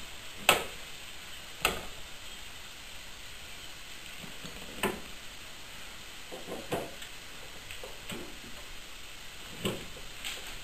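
Scattered metal clicks and knocks as a freshly machined drive-shaft coupler is pushed and twisted by hand onto a garden tractor's input shaft, the sharpest about half a second in and a few more spread through. The bore is a little tight on the shaft.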